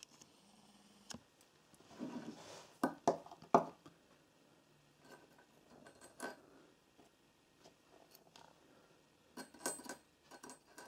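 Small metal internals of a disassembled socket ratchet (springs and pawls) clinking and tapping as they are handled. The clicks are scattered, with a louder cluster about two to four seconds in and another near the end.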